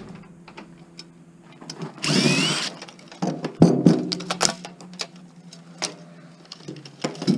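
A power drill runs in one short burst about two seconds in, followed by a series of clicks and knocks as metal parts are handled, over a steady low hum.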